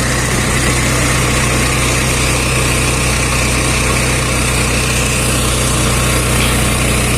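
A vehicle's engine running steadily, with road and wind noise, heard from on board while travelling.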